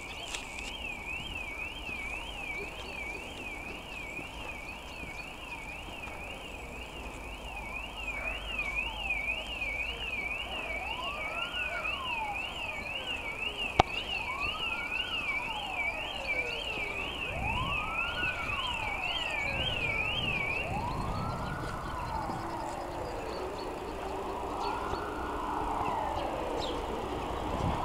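Car alarm warbling fast and evenly, about two up-and-down cycles a second, then stopping about three quarters of the way through. Over its second half a slower wail rises and falls every two to three seconds, and there is one sharp click about halfway.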